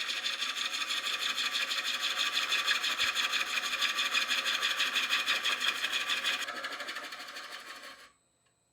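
Bowl gouge cutting a large green elm bowl blank spinning on a wood lathe, turning the tenon: a steady cutting hiss with a fast, even pulse, which lightens near the end and then cuts off.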